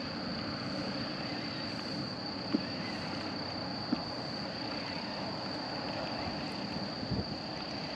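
Outdoor ambience: a steady high insect drone over a faint, even rushing background, with a few small clicks about two and a half, four and seven seconds in.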